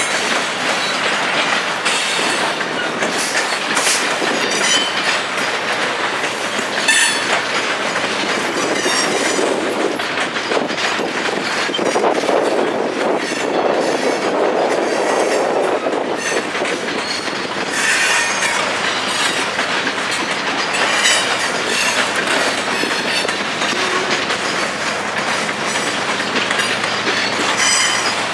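Covered grain hopper cars of a freight train rolling past, wheels clicking over the rails with frequent short high-pitched flange squeals.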